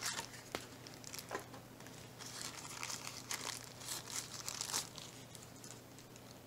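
Thin plastic wrapping crinkling and rustling in the hands as it is pulled off a small metal charging base, in irregular crackly bursts that are busiest in the middle.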